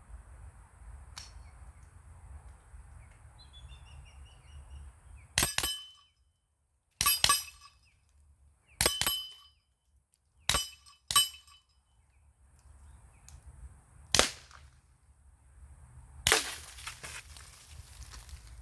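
AEA SF Compact semi-automatic PCP air rifle firing slugs in quick double taps, several sharp reports mostly in pairs, with steel targets ringing briefly after the hits.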